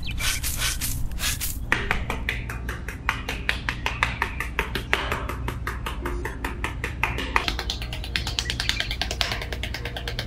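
Dense, rapid light tapping and clicking, many strokes a second, over a low steady hum.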